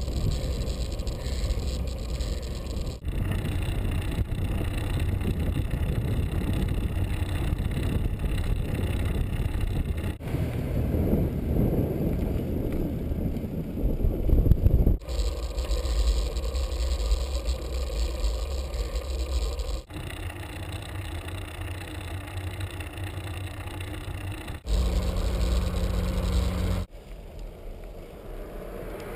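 Wind buffeting the microphone of a bike-mounted action camera, over rumble from bicycle tyres on asphalt. The sound changes abruptly several times, and a steady low hum joins it for about two seconds near the end.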